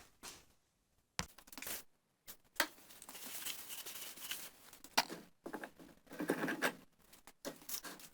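Workshop handling noises as the refinished vise's parts are worked on and fitted back together: stretches of rustling and scraping with a couple of sharp clicks, broken by abrupt gaps.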